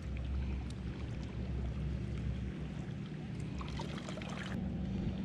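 Quiet lakeshore ambience: a steady low rumble with faint trickling of water lapping at the rocky shore, and a few faint ticks a little past the middle.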